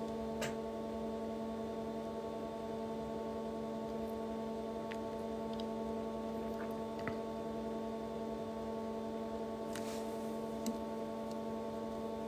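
A steady hum made of several held pitches, with a few faint clicks.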